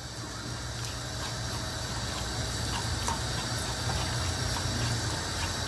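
Ground beef sizzling in hot oil in a nonstick frying pan while a wooden spatula breaks it up, with a few light taps and scrapes. The sizzle is steady, over a low rumble.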